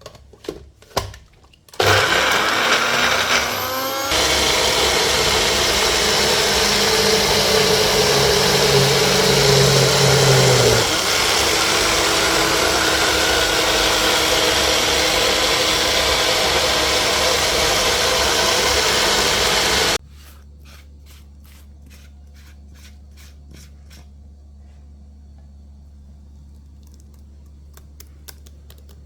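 Electric blender running, blending garlic and ginger seasoning. It starts about two seconds in after a few clicks, the motor's pitch shifts a couple of times as it runs, and it cuts off suddenly, followed by light clicking.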